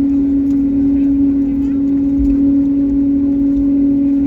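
Aircraft engine noise heard inside the passenger cabin: a steady hum over a low rumble, unchanging in pitch and level.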